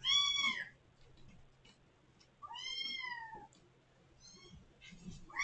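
Kitten mewing loudly and repeatedly, high-pitched cries calling to be let out through a closed door: a loud mew at the start, a softer drawn-out one about two and a half seconds in, a brief faint one, and another loud one right at the end.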